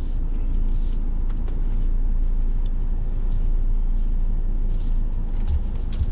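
Steady low rumble of a car heard from inside the cabin, with a few faint scattered ticks and clicks.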